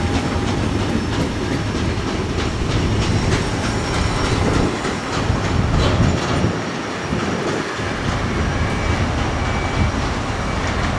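Freight train of tank wagons rolling away over the rails, its wheels clattering over the track, the rumble thinning out after about five seconds as the train draws off into the distance.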